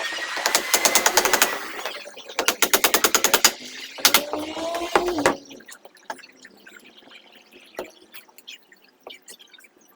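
Three short bursts of rapid, rattling clicks, about a dozen a second, each a second or so long, over a whine that rises and falls, typical of a handheld power tool run in quick bursts; it is faint and scattered after the third burst.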